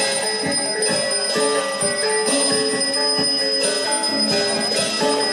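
Balinese gamelan music: bronze metallophones play a stepping melody a few notes a second over repeated cymbal clashes, with steady high bell-like ringing above.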